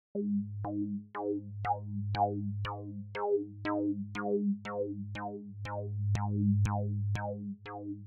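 Sugar Bytes Cyclop software synthesizer playing a repeating bass pattern of about two notes a second. Each note starts with a sharp zap that sweeps downward, from an envelope sweeping the pitch of a hard-synced oscillator, while an LFO moves the lowpass filter cutoff so the brightness changes from note to note.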